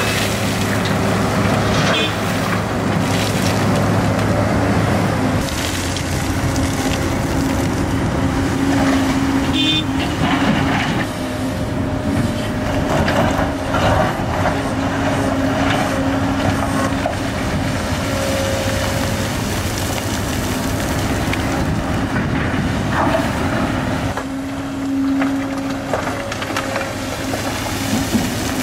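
Large Volvo EC750E hydraulic excavator's diesel engine running steadily, with rock and dirt crunching and clattering as the bucket dumps a load into a haul truck and then digs into a pile of broken rock.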